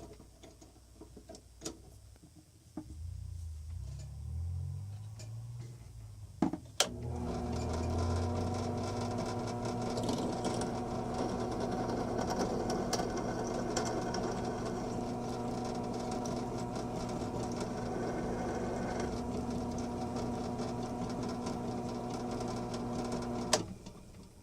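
Electric drill running steadily with a 1/8-inch bit, boring a new pin hole through the screw of an old bench vise. A few light clicks of handling come first. The drill starts about seven seconds in and cuts off suddenly near the end.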